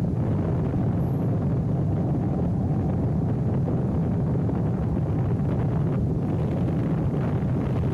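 Steady rush of airflow over the microphone of a camera mounted on a hang glider's wing in flight: a deep, even wind roar.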